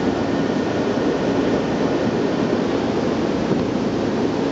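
Steady noise of a Yokohama Minatomirai Railway Y500 series electric train standing at a station platform with its onboard equipment and air-conditioning running, with no change before it pulls away.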